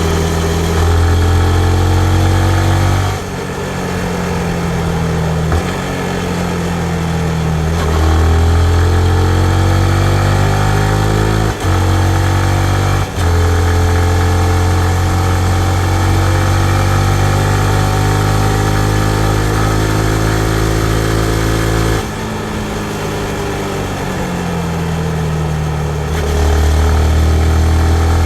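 2019 Yamaha MT-15's single-cylinder engine under way, its note climbing again and again as the bike accelerates, with brief dips where the rider changes gear. About two-thirds in the throttle closes and the pitch falls, then it picks up again near the end.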